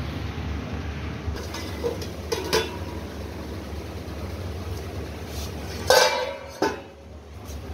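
Steel plate lid clinking against a kadhai as it is pried up with a knife and lifted off: a few light clinks about two seconds in, then two loud metal clanks about six seconds in. A steady low rumble runs underneath.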